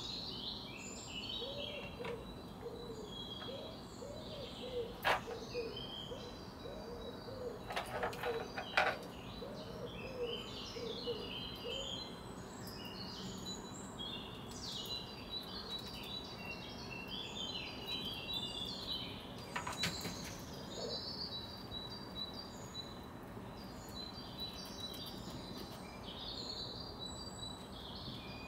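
Outdoor birdsong: several small songbirds chirping and twittering throughout, with a lower bird call repeated rapidly, about twice a second, through the first twelve seconds or so. A few sharp clicks and knocks stand out around five seconds in, in a quick cluster near eight to nine seconds, and once around twenty seconds.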